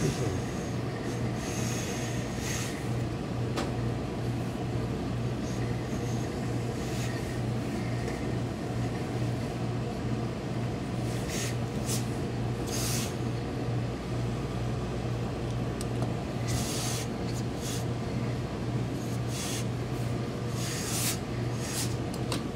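A steady low machine hum from tailoring pressing equipment, with short hissing and rustling sounds now and then as cloth is pressed and smoothed.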